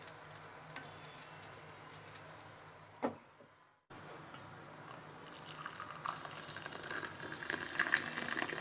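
Light clinks and rattles of kitchen utensils being handled, with one sharp knock about three seconds in, then a short gap of silence, and the clicking growing busier toward the end.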